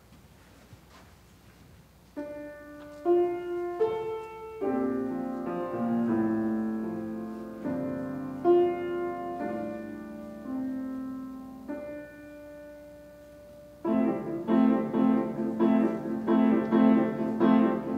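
Piano playing the introduction to a choir anthem: after a brief hush, single notes and chords ring out from about two seconds in, then fuller, louder repeated chords start near the end.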